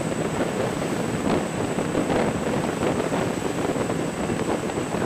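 Wind buffeting the microphone and water rushing and spraying along the hull of a Mark VI patrol boat running at high speed, a loud steady roar with a thin, steady high whine over it.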